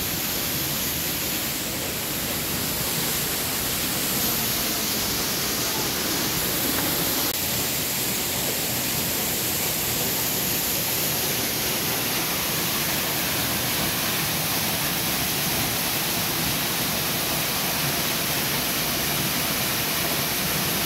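Waterfall: falling water making a steady, even rush of noise with no breaks.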